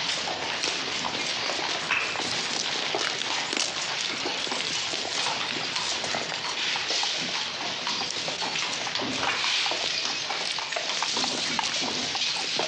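Busy building-site bustle: a steady din of knocks and clatters from timber and tools, with footsteps on sand.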